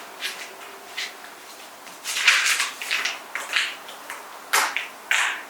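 Handling noise: irregular rustling with a few light knocks and clicks, strongest about halfway through, and two sharp clicks near the end.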